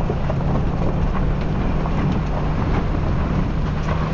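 Vehicle driving along, heard from inside: the engine's steady low hum with tyre and road noise and many small ticks and rattles.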